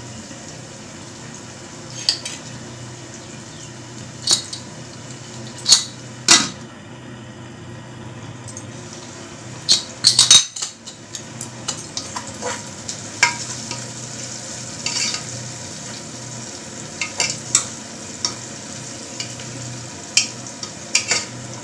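Sliced onions and green chilli sizzling in oil in an aluminium pressure cooker, with a steel spoon scraping and clinking against the pot at irregular intervals as they are stirred. A cluster of sharp knocks about halfway through.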